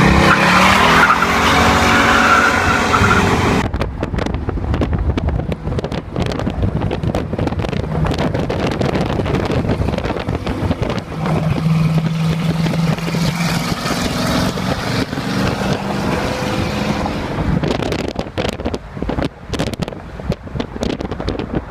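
Chevrolet C10's 454 big-block V8 running hard and loud for the first few seconds, then pulling on with its note rising and falling, holding steady for a few seconds midway and turning choppy near the end.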